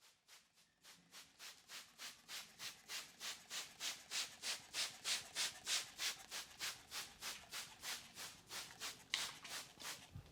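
Hands rubbing briskly in a head massage: an even run of hissy rubbing strokes, about three to four a second, growing louder and then easing off.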